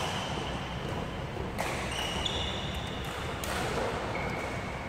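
Badminton rally: two sharp racket strikes on the shuttlecock, with several short high-pitched squeaks of court shoes on the synthetic floor.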